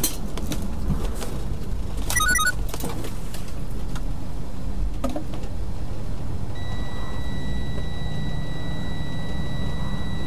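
Steady low rumble of a truck's engine and road noise heard inside the cab. About two seconds in comes a brief burst of high electronic beeps, and from about halfway through a steady high electronic tone sounds.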